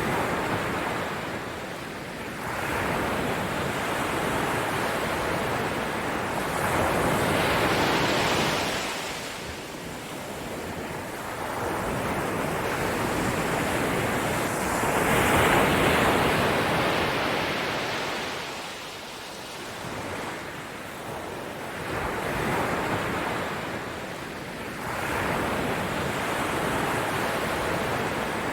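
Ocean waves washing ashore in slow swells, each rush of surf rising and fading over a few seconds, about six in all.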